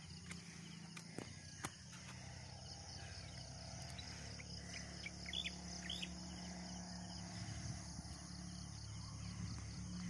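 Outdoor dawn ambience of insects, with a few short bird chirps about five to six seconds in, over a low steady rumble.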